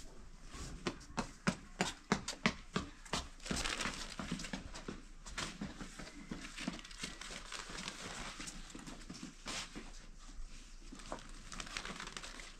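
Thin, dry sheets of homemade flatbread crackling and rustling as they are lifted, folded and stacked by hand. A quick run of sharp crackles at first, then a longer rustle and scattered lighter crackles.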